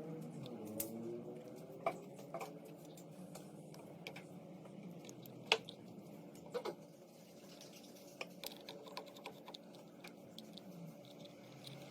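Scattered light clicks and taps of small metal parts and hand tools being handled, as wires are worked into a circuit breaker's terminal. The sharpest click comes about halfway through, with a run of softer ticks after it.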